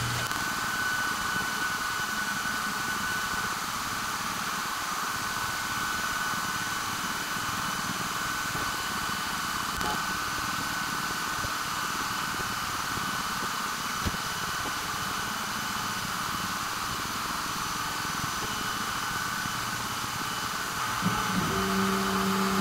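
6-watt diode laser engraver on a CNC gantry engraving glass: a steady hiss and hum with a faint high whine. Near the end a louder buzzing tone sets in as the stepper motors move the laser head.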